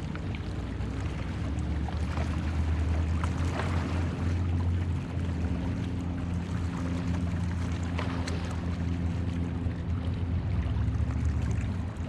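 Motorboat engine running steadily on the water, a low drone that holds throughout, with a few faint light clicks over it.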